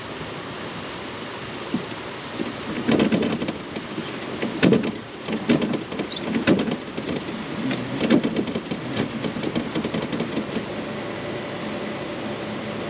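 Irregular knocks, thumps and clatter of gear being handled in a fishing boat, in clusters over several seconds. Near the end a steady low hum sets in.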